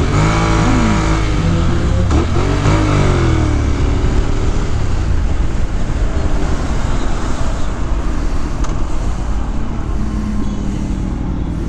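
Motorcycle engine running in traffic, its revs rising and falling several times in the first few seconds. After that a steady wind rush over the microphone covers most of the engine sound.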